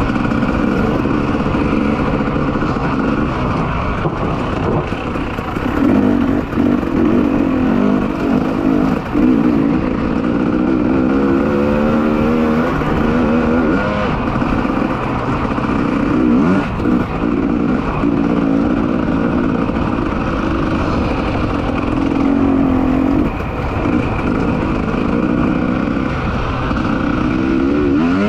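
300 cc two-stroke enduro motorcycle engine running under way, revving up and dropping back as the rider accelerates and shifts, with repeated rising sweeps in pitch around the middle and near the end.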